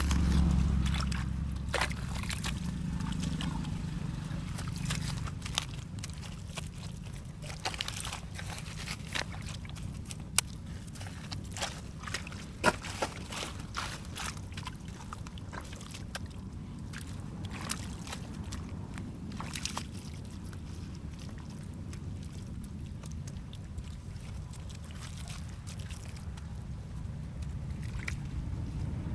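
Wet mud squelching and shallow water sloshing as hands and bare feet work through a muddy pond bed, with scattered sharp clicks and knocks over a steady low rumble.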